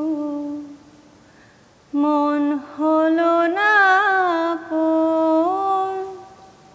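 A woman singing a Bengali song unaccompanied, drawing out long held notes. The last note fades just under a second in, and after a pause she sings three more drawn-out phrases, the voice wavering on the middle one before the last note dies away.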